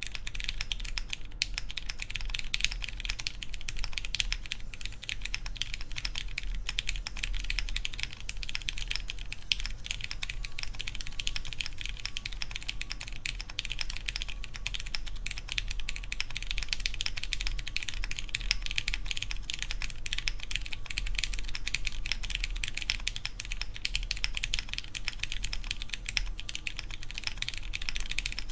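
Continuous typing on a Wind Studio Hola Mini mechanical keyboard with lubed Cherry MX Clear tactile switches, a polycarbonate plate and GMK keycaps: a steady, dense stream of keystroke clacks.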